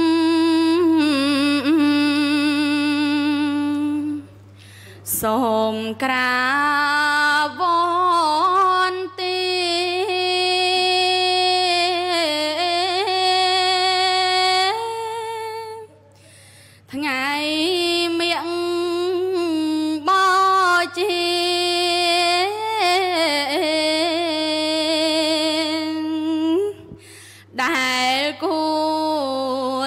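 Khmer smot: a young woman chanting Buddhist verse solo and unaccompanied, in long held notes that waver and bend in pitch, with short breaks for breath about four, sixteen and twenty-seven seconds in. A steady low hum runs underneath.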